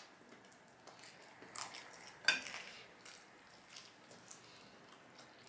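A fork or other utensil clicking against a plate or food container during eating: a few light, separate clicks, the sharpest a little over two seconds in.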